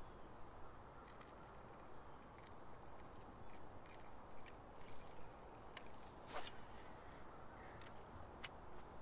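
Quiet steady background noise with a few faint, scattered small clicks and ticks, and one brief louder scrape about six seconds in.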